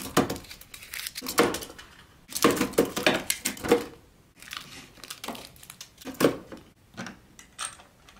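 Wrapped chocolates in paper and foil candy cups dropping into the plastic case of a toy claw machine, rustling and clattering against each other and the plastic in a series of irregular bursts.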